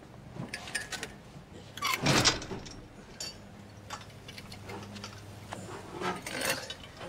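Metal car exhaust pipes clinking and scraping on a pavement while they are bundled in a woollen blanket, with scattered light clicks and rustling and the loudest noise about two seconds in.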